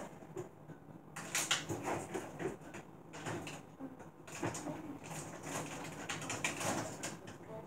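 Things being handled and moved about on refrigerator shelves: irregular knocks, clicks and rustles of containers being shifted.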